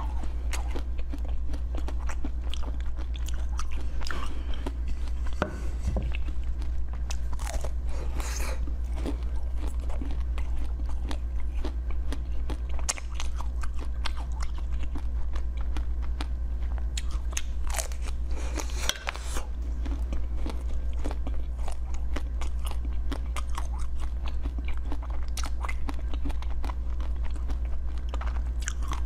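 Frozen basil-seed ice being bitten and chewed: many sharp, crisp crunches one after another, over a steady low hum.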